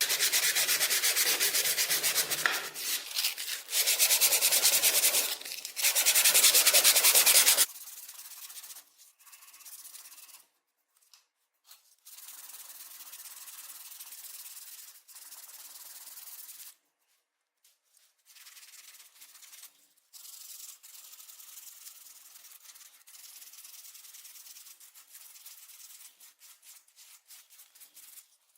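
Abrasive sanding or scrubbing of rusty metal. It is loud in three stretches over the first seven seconds or so, then quieter and on-and-off, in short runs with brief pauses.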